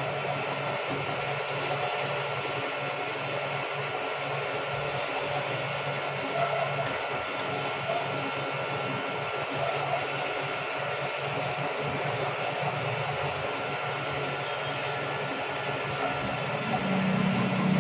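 Milling machine running steadily, its spindle turning a cutter that bores into a steel ball-peen hammer head clamped in the vise; a steady motor hum with a low drone that grows louder near the end.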